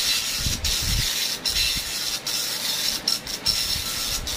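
Epson LX-310 9-pin dot-matrix printer printing a manual self-test after its print head was cleaned: a steady buzz from the print head, broken by a short pause a little under once a second.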